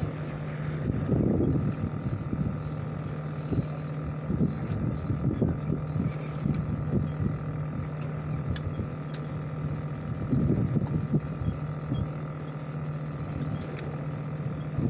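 Steady hum of a party fishing boat's engine, with uneven noise from wind and water over it.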